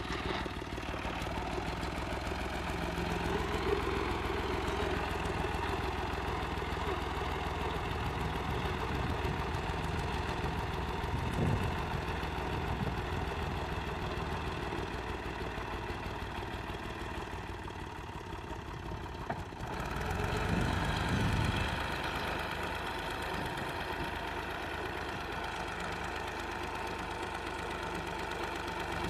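New Holland 480 tractor's three-cylinder diesel engine idling steadily, growing louder for a couple of seconds about twenty seconds in.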